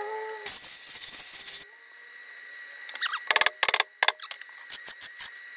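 Sharp metallic clicks and knocks from working the tack-welded steel bottom door skin of a Volkswagen Super Beetle door: a short hiss about half a second in, a quick run of knocks about three seconds in and a few more near the end, over a faint steady high tone.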